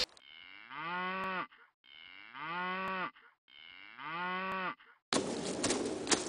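A cow mooing three times: the same low moo is repeated identically, each call about a second and a half long and dropping in pitch as it ends. About five seconds in the moos give way to an outdoor background with a few sharp clicks.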